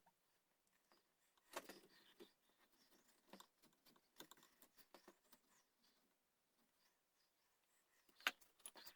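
Faint, scattered clicks and short scrapes of hand work on a wooden gunstock, with a sharper click near the end.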